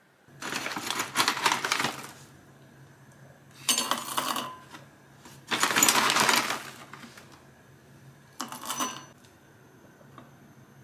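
Four bursts of dense rattling, many small hard pieces clattering together, each between half a second and two seconds long, the second and fourth shorter than the others.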